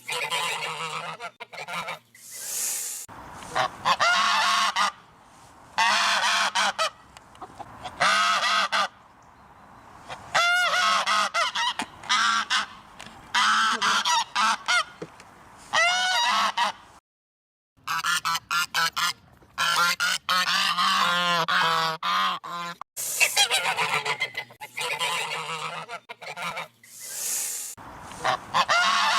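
Geese honking: repeated loud, harsh calls in bursts, several birds overlapping at times, with a brief silent break a little past halfway.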